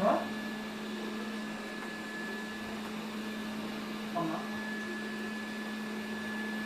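Robot vacuum cleaner running: a steady motor hum with a thin high whine over it. Two short louder sounds break in, one right at the start and one about four seconds in.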